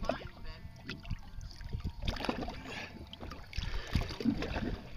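Water slapping and gurgling against the fibreglass hull of a fishing boat sitting on calm sea.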